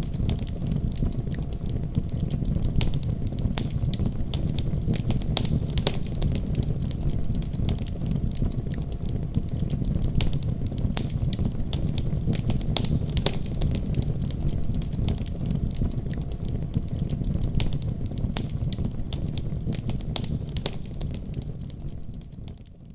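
Fire burning in a fireplace: a steady low rumble with frequent sharp crackles and pops, fading out near the end.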